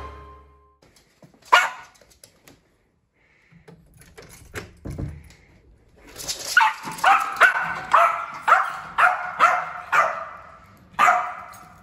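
A small Yorkshire terrier barks once about a second and a half in. Then, from about six seconds in, it barks about ten times in quick succession, roughly two a second, and once more near the end. The barking is excited: the dog wants to be taken out.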